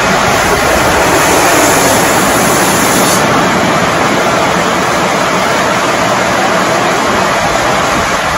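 Steam hissing out along a sawmill's log-carriage track: a loud, steady rushing noise, with an extra-high hiss from about half a second to three seconds in.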